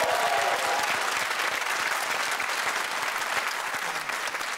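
Studio audience applauding, a dense steady clatter of many hands that eases off slightly toward the end.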